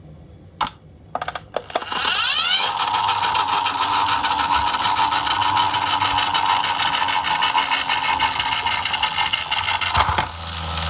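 Toy garbage truck's drive mechanism whirring as it runs along a wooden board, with fast rattling ticks from its gears. The whirr rises in pitch about two seconds in, holds steady, and drops off near the end.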